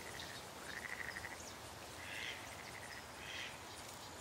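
Faint woodland ambience with a small animal calling. A brief rapid trill comes about a second in, then three short calls about a second and a quarter apart.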